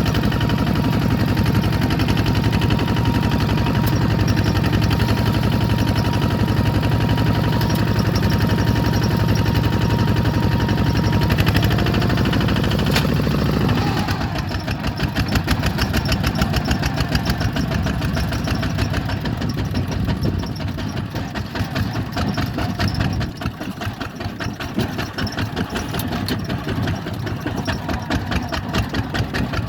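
Bulldozer's diesel engine running under power, then about halfway through it falls in pitch and settles to a lower, rapidly pulsing idle.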